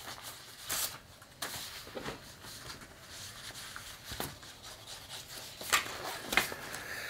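Quiet room with a few faint, brief clicks and soft rustles scattered through it.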